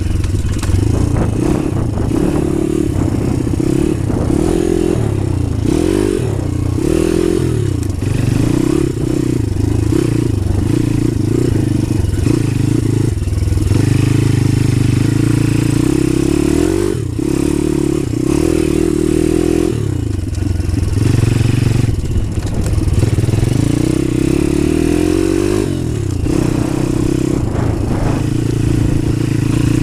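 DemonX Phatboi pit bike's small single-cylinder engine running under way, its pitch rising and falling again and again as the throttle is opened and closed.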